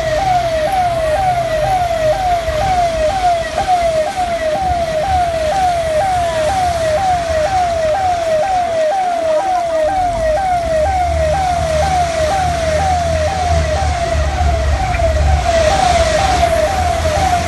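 A siren sounding in a fast repeating wail, a little more than one cycle a second, over a low engine rumble that grows stronger about ten seconds in.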